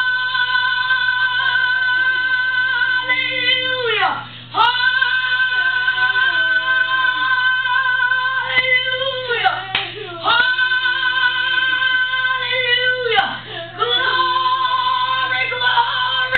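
A woman singing long held high notes, four in turn, each lasting several seconds and sliding down in pitch as it ends. A second, quieter voice wavers up and down beneath them.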